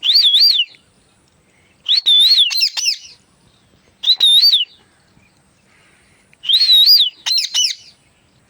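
A pet parrot whistling: four short warbling whistles about two seconds apart, each wavering up and down in pitch. The second and the last are each followed by a few quick sliding notes.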